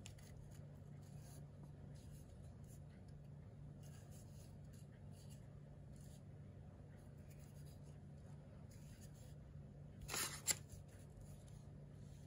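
Faint handling sounds of a fixed-blade knife being turned in the hand, over a low steady hum. About ten seconds in there is a brief scrape and one sharp tap as the grip on the micarta handle shifts.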